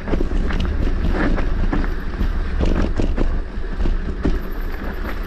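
Mountain bike ridden over a rough, narrow trail: the bike rattles and clatters with frequent irregular knocks from roots and bumps, over a steady low rumble of wind and handling noise on the camera microphone.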